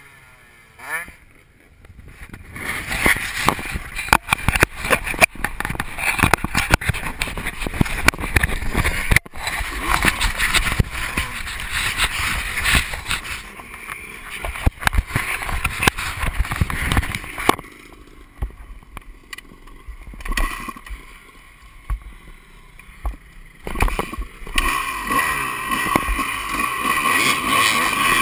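Honda CR250 two-stroke dirt bike being ridden, its engine revving up and down with wind and bumps buffeting the on-bike microphone. It drops back for several seconds after the middle, then revs up again, rising, near the end.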